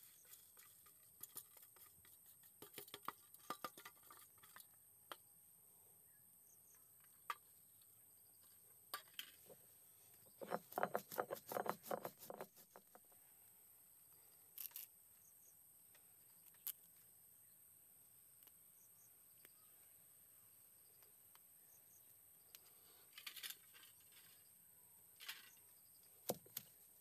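Stone roller crushing dry spices (cumin seeds, peppercorns, chilli) on a flat stone grinding slab: scattered gritty crackles with long quiet gaps, densest in a burst of about two seconds roughly ten seconds in.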